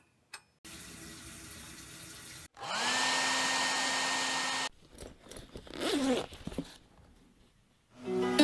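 Hand-held hair dryer switched on, its motor whine rising and settling into a steady blowing rush for about two seconds, then cut off suddenly. A faint steady hiss comes before it and a fainter wavering swish follows.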